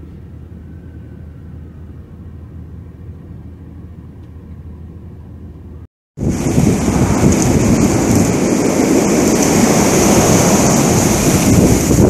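Blizzard wind: a steady, fairly quiet rush for about six seconds, then after an abrupt cut, loud, sustained gusts buffeting the microphone.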